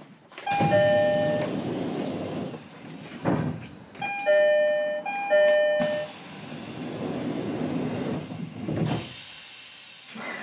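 E129 series train's door chime sounding a descending two-note ding-dong three times: about half a second in, about four seconds in and again just after five seconds. A rushing hiss follows the first and the last chime, and there are short thumps around three seconds and nine seconds in.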